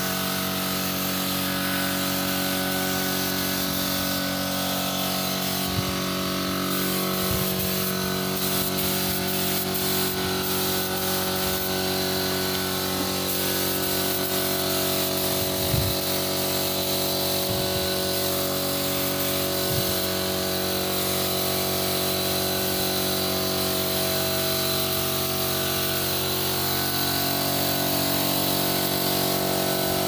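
Air compressor motor running steadily, with the hiss of a compressed-air spray gun spraying a sealer coat.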